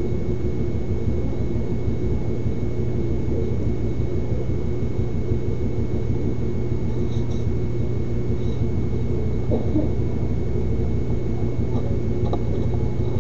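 Steady low hum and rumble with a faint, constant high whine, and a few faint clicks of parts being handled.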